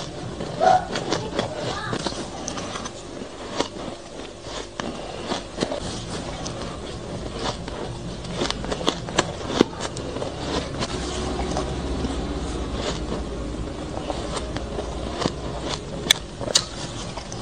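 Shaved ice being chewed and crunched in the mouth, with irregular sharp crunches and spoon clicks against a metal bowl. A low hum sits under it in the middle.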